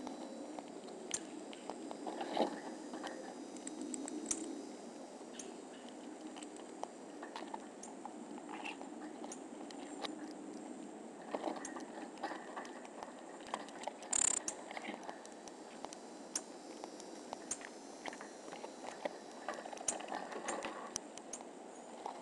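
Pygmy marmoset eating at close range: irregular small clicks and crunches of chewing over a low rustle, with one sharper crack about two-thirds of the way through.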